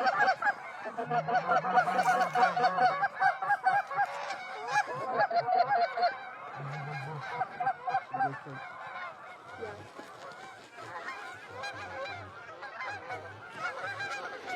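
A flock of geese honking, many birds calling over one another in a dense chorus that thins out in the second half.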